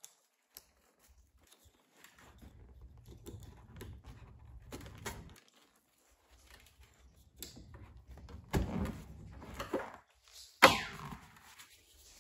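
Handling noise from a car seat back being worked on: faint rustling and rubbing, a few soft knocks, then one sharp thunk with a short ringing tail about ten and a half seconds in.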